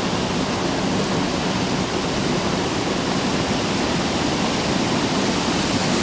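Steady rush of river water pouring into a wooden tub and churning in a whirlpool: a water-powered natural washing machine running, its flow set by a wooden gate lever.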